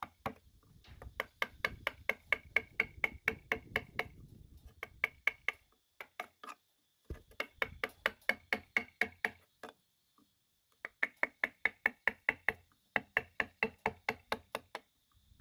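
A mallet tapping a wood-carving chisel into a carved wooden relief panel, about four or five quick strokes a second, in runs broken by short pauses.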